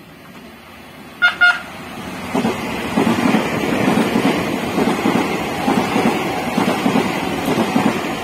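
Taiwan Railways electric train sounding two short horn blasts about a second in, then running past close by with a rising rumble and clatter of its wheels on the rails.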